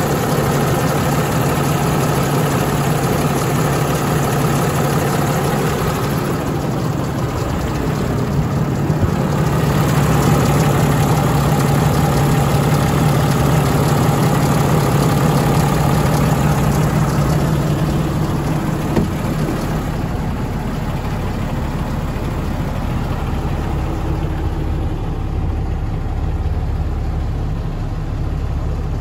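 Freightliner M2 106 truck engine idling steadily, heard close at the open engine bay. Near the end it sounds more muffled, as heard from inside the cab.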